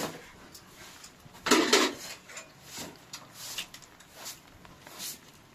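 Kitchenware clattering: one loud clatter about one and a half seconds in, followed by a few light scattered clicks.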